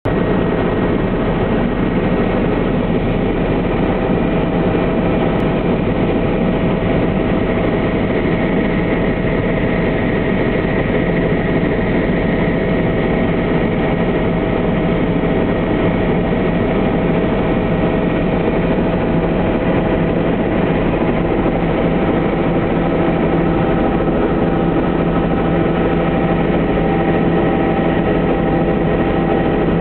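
Helicopter cabin noise in steady cruising flight: the engine and rotors make a constant loud drone with several steady tones over a rushing noise.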